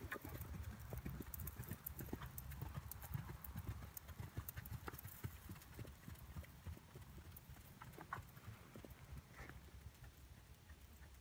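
A ridden horse's hoofbeats on the soft footing of a sand arena, growing fainter as the horse moves away.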